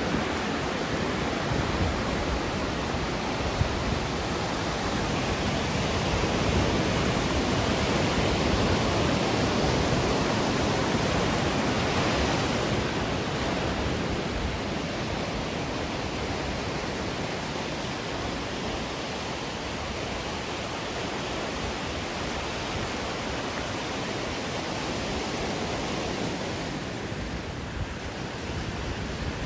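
Ocean waves washing onto the shore: a steady rushing that swells over the first several seconds and then slowly eases off.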